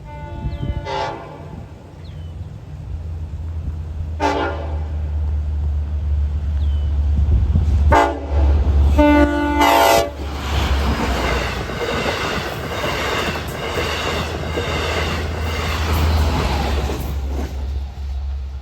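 Long Island Rail Road DM30AC diesel locomotive approaching a grade crossing: its engine drone builds while the chime horn sounds four times, the last blast the longest. The train then passes close by, a loud rumble with wheels clattering over the rail joints.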